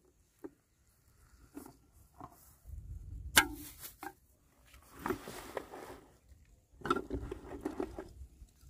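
Bamboo tubes being handled on grass: scattered knocks and rustles, one sharp knock about three and a half seconds in, and a busy run of hollow clacks near the end as tubes knock against each other and against a plastic tub.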